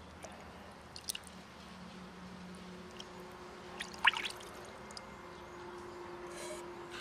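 Melted butter poured from a metal pot into a plastic bowl of flour: soft wet splatting and trickling, with one short, louder splash about four seconds in.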